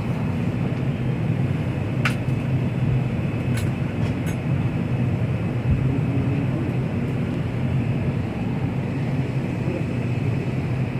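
Steady low rumble of a vehicle in motion, heard from inside, with a few faint clicks.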